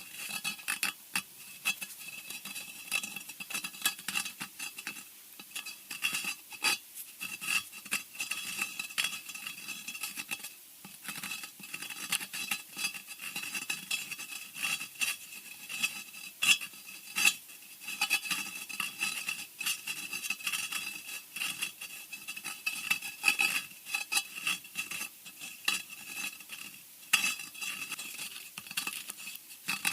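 Horror-style scratching sound effect: a dense, irregular run of scratches and sharp clicks, over a faint steady high-pitched tone.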